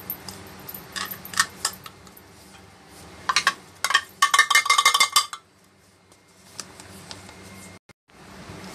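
Metal spoon tapping and scraping against a ceramic bowl and cup as cornstarch is measured out and levelled: a few taps about a second in, then a rapid run of ringing clinks from about three to five seconds in.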